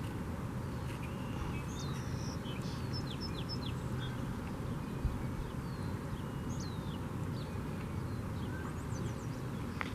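Scattered short, high-pitched bird chirps, several quick sliding calls in small runs, over a steady low outdoor background rumble.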